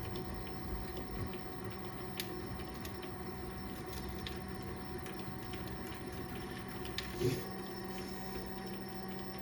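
Mini lathe running steadily at low speed while a die in a tailstock die holder cuts an 8 mm thread on oiled stock. The motor gives a steady hum, with a few faint ticks and a light knock about seven seconds in.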